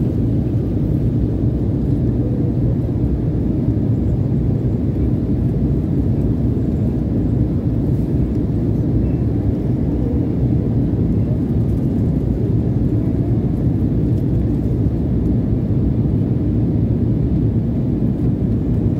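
Steady low cabin drone of a jet airliner in flight, engines and rushing airflow heard from inside the cabin during the descent toward landing.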